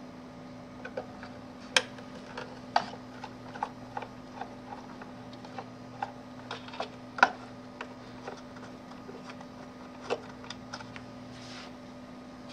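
Scattered small clicks and ticks of a hand screwdriver and the plastic fan housing being handled while the last screw of a DLP television's cooling-fan assembly is backed out, a few louder clacks among them, over a steady low hum.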